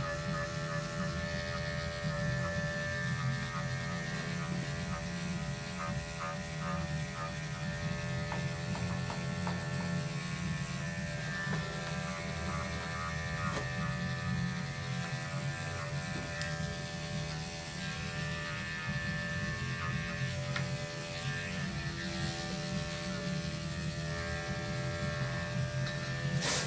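Corded electric pet clippers running with a steady buzz as they shave a long-haired cat's fur around its head and cheeks.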